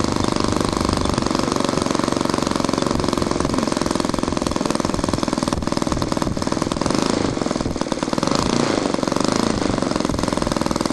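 Cessna 152's four-cylinder piston aircraft engine running steadily, its firing heard as a fast, even pulsing.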